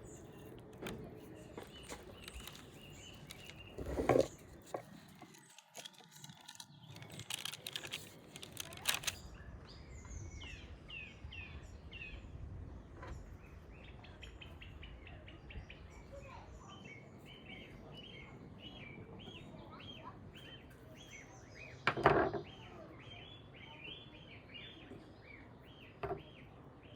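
Small birds chirping in quick runs of short repeated notes through much of the stretch, over a faint outdoor background. Two loud knocks stand out, one about four seconds in and one about five seconds before the end.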